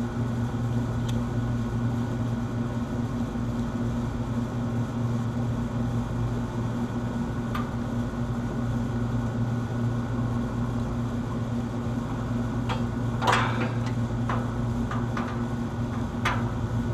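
A steady low hum runs throughout. From about 13 seconds in come a handful of sharp clicks and snaps, the loudest first, as a crimping tool closes a connector onto an air-conditioner wire lead.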